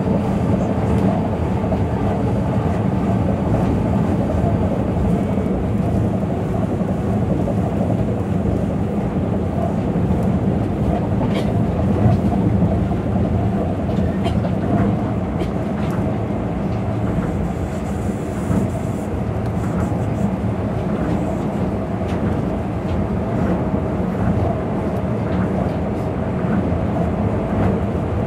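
Tokyo Monorail 2000 series train running at speed, heard from inside the car: a steady rumble of its rubber tyres on the guideway beam, with a few faint clicks in the middle.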